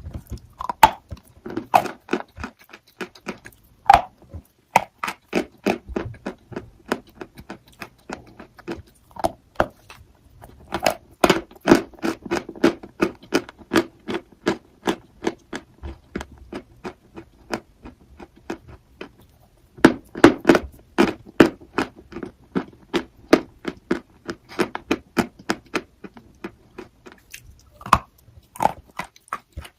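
Crunchy chalk being bitten and chewed close to the microphone: crisp, loud crunches that come in quick runs of several a second, with short pauses between bites.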